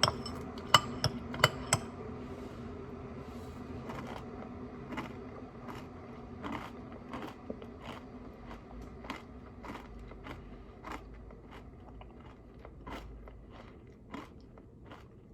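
Close-up crunching and chewing of homemade granola with crystallized ginger: irregular sharp crunches, strongest in the first two seconds and then thinning out and getting fainter. The granola is very crunchy, a sign that it was baked long enough.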